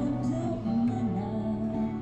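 Busker's acoustic guitar with a voice singing a held, sliding melody, amplified through a small speaker.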